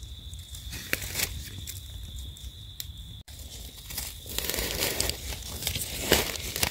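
Dry leaf litter and crumbly dry soil crackling and scraping as the ground around young termite mushrooms is worked with a knife and fingers. Faint, scattered crinkles in the first half; denser rustling with a few sharper crackles from about four seconds in.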